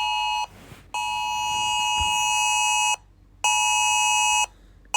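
Electronic emergency alert tone from a TV's Emergency Alert System broadcast, beeping on and off: a beep ending about half a second in, a two-second beep, a one-second beep, and another beginning at the end, separated by short gaps. It heralds a Child Abduction Emergency (Amber Alert).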